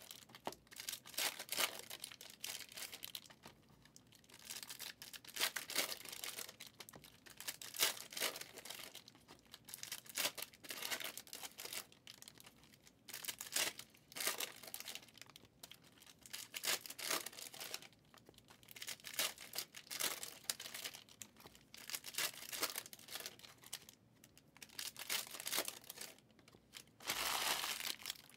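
Plastic foil wrappers of 2023 Prizm football card packs being torn open and crinkled while cards are handled, in repeated short irregular bursts. A longer, louder stretch of crinkling comes near the end.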